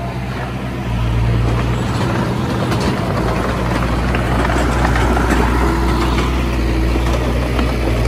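Komatsu D20A crawler bulldozer's diesel engine running steadily under load, with scattered clicks and rattles of tracks and stone.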